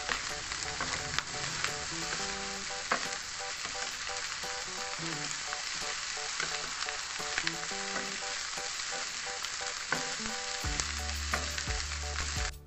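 Egg fried rice sizzling steadily in a hot nonstick pan as a wooden spatula stirs and tosses it, with scattered small scrapes and taps of the spatula against the pan.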